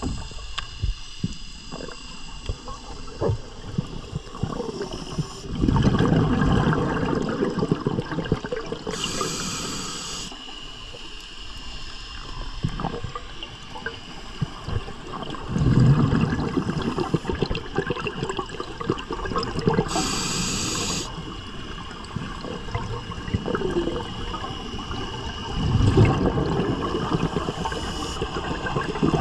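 Scuba regulator breathing underwater. A hissing inhalation through the demand valve alternates with a louder rush of exhaled bubbles, in a slow cycle of roughly ten seconds: three bubble exhalations and two inhalations.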